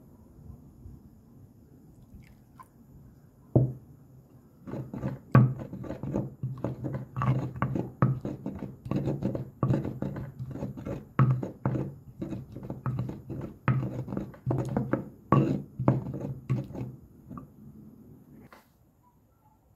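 A stone pestle (tejolote) mashing and stirring chile salsa in a volcanic-stone molcajete. It makes an uneven run of dull knocks, about two a second, that starts a few seconds in and stops near the end.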